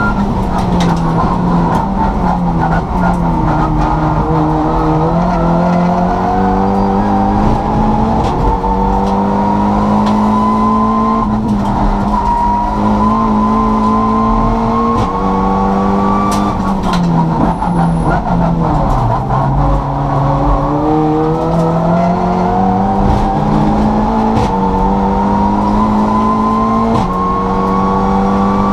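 Turbocharged Volkswagen Polo race car's engine at racing pace, heard from inside the stripped cabin. The engine note drops twice under braking, about 3 and 18 seconds in, and between and after those drops it climbs steadily as the car accelerates.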